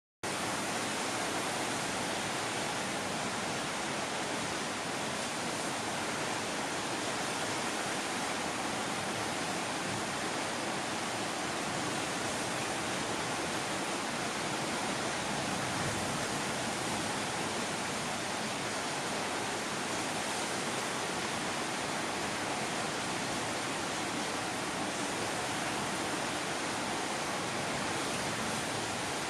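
Steady, even hiss with no distinct events or changes.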